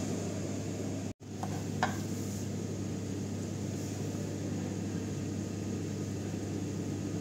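Steady low background hum, briefly cutting out just after one second, with a small click near two seconds in.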